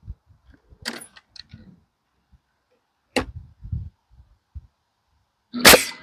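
A framing nailer shooting spikes into lumber, three sharp shots a couple of seconds apart, the last the loudest, with low knocks of boards being handled between them. A steady machine hum starts right at the end.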